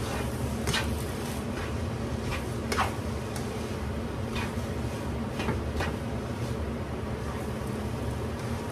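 Fried noodles being tossed in a large non-stick pan: a black cooking utensil scrapes and knocks against the pan about half a dozen times at irregular moments, over a steady low hum.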